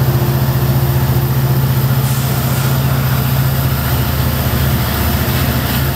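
Diesel locomotive engine running steadily, a deep even drone with a fine rapid pulse.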